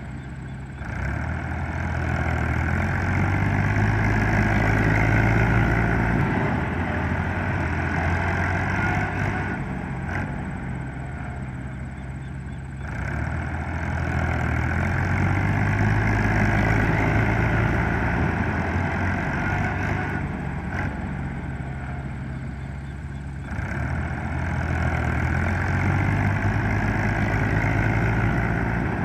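A tractor's diesel engine running steadily under load, with a loud rushing noise over it. The sound swells and fades in cycles of about ten seconds.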